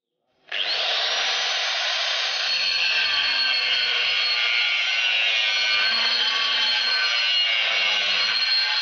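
Angle grinder starting about half a second in, whining up to speed, then cutting steel with its abrasive disc, a steady loud grinding noise as sparks fly.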